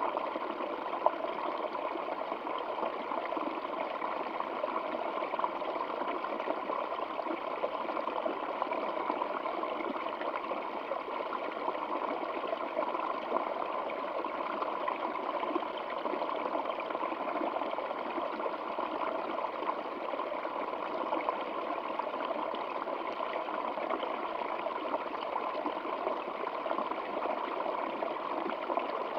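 Stream water flowing steadily, an even, continuous rush with little deep rumble, and a single brief click about a second in.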